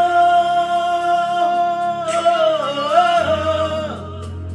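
Worship music: a voice sings a long, held, slightly wavering note over sustained instrumental backing. A steady low bass note comes in about three seconds in, and the voice fades out near the end.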